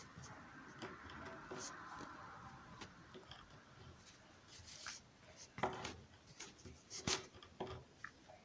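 Ballpoint pen scratching faintly on paper as digits are written, with a few sharper taps in the second half.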